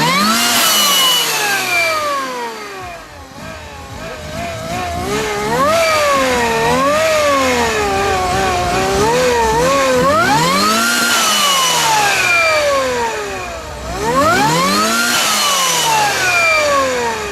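Car engine revved again and again with no load, each blip climbing quickly in pitch and then falling away more slowly. The biggest revs come a little past the middle and again near the end.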